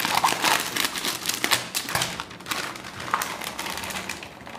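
Scissors snipping open a crinkly foil-lined plastic snack packet, a quick run of clicks and crackles. The clicks thin out as the wrapper rustles and the puffed snack rings are tipped out onto a plate.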